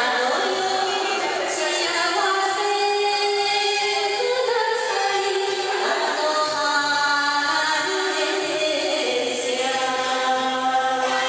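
A woman singing a Japanese enka song in long held notes, over an instrumental backing track.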